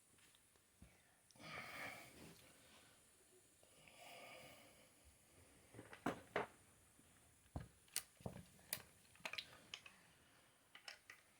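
Handling noise from working on a Dyson cordless vacuum: two brief rustles, then from about halfway a run of sharp clicks and knocks, like plastic parts and small tools being handled.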